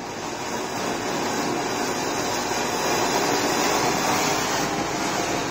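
Giant flower pot (anar) fountain firework burning, a steady hissing rush as it sprays a tall column of sparks. It builds up over the first second and is loudest about three to four seconds in.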